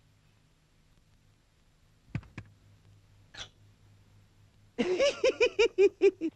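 Cartoon sound effects: two quick sounds swooping down in pitch about two seconds in and a short snip, then, near the end, a loud chattering run of about nine quick vocal syllables, each rising and falling in pitch.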